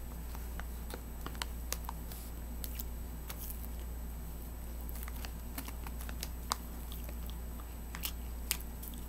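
Soft mouth clicks and lip smacks of someone eating cotton candy, scattered and irregular, over a steady low hum.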